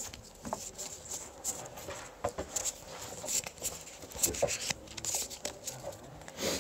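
Pokémon trading cards being handled and laid down on a playmat: irregular light clicks and rustles, a few sharper taps among them.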